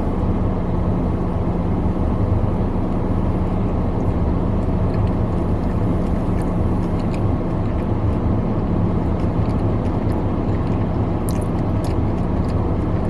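Car engine idling, heard from inside the cabin: a steady low hum with a constant drone. A few faint ticks come near the end.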